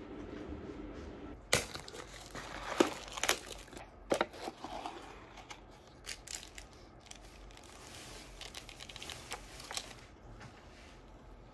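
Crinkling and tearing of instant cup-noodle packaging as the paper lid is peeled back and the contents are opened. It comes as a string of sharp rustles, loudest in the first few seconds, then lighter.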